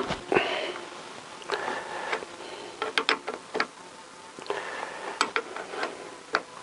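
Irregular metallic clicks and taps of hand tools, a spanner and then a hand-turned tool bar, loosening the brake-hose banjo bolt on a motorcycle's front brake master cylinder. A bee buzzes faintly at times.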